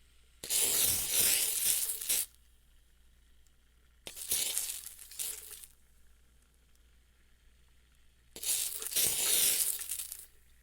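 WD-40 aerosol can spraying in three separate bursts of hiss, each lasting about one and a half to two seconds.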